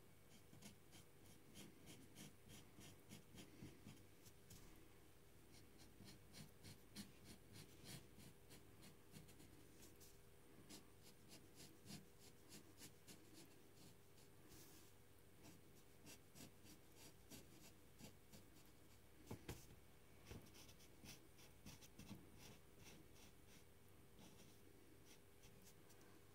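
Faint, rapid strokes of a pen tip scratching on paper as small areas of a drawing are coloured in, with a faint steady hum underneath.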